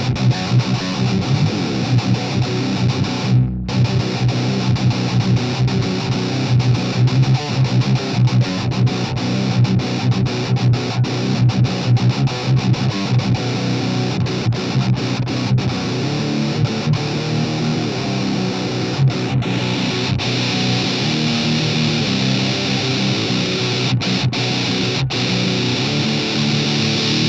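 Electric guitar played through a Harley Benton Extreme Metal distortion pedal: heavily distorted riffing, with a short stop about three seconds in. The playing turns to more sustained, ringing notes in the last several seconds.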